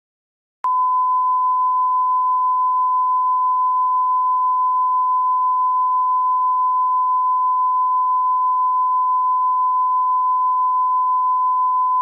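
Electronic censor-bleep tone: a single steady, pure beep at a fixed medium-high pitch starting about half a second in and holding unbroken, with no change in pitch or loudness.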